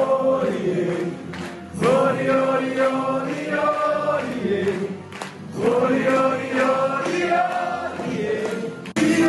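Carnival party song with a chorus of voices singing long, held phrases, breaking off briefly about one and a half and again about five seconds in.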